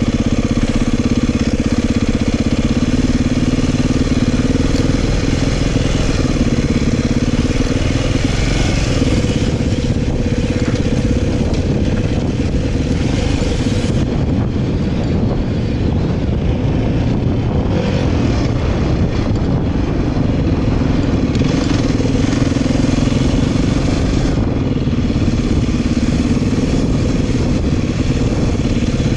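Dirt bike engine running steadily while riding a dirt trail, with a broad rushing noise over it; the engine eases off a little about halfway through.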